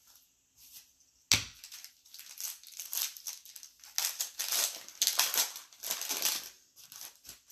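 A sharp knock about a second in, then the plastic wrapper of a Select baseball card pack crinkling and crackling for several seconds as it is torn open.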